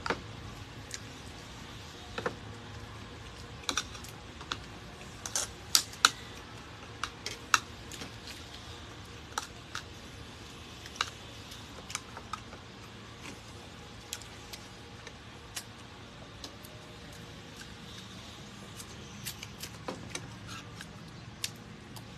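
Spoon clicking and scraping against a bowl and cutlery on plates during a meal: irregular light clicks, sometimes two or three close together, over a faint steady background.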